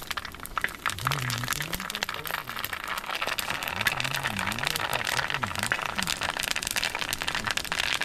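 Low voices talking quietly under a dense, continuous run of small crackles and clicks.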